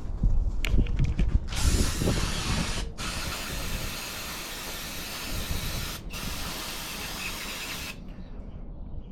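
An aerosol spray can being sprayed in three long bursts of hiss, each cut off sharply, with a few clicks of handled parts just before.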